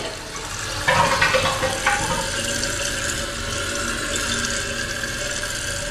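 Kohler Highline Class 5 toilet flushing: a loud surge of rushing, gurgling water about a second in as the bowl empties. Then the tank's Fluidmaster 400A fill valve refills with a steady hiss and a faint steady whine.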